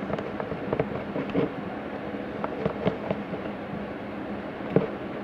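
Irregular light clicks and taps of a utensil stirring dye into slime glue in a bowl, over a steady low hum, with one sharper click near the end.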